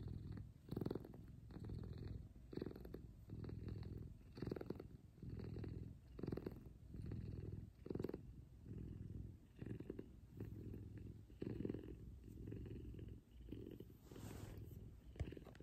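F2 Savannah cat purring loud while its chin is scratched, a deep, contented purr that swells and fades with each breath, about once a second.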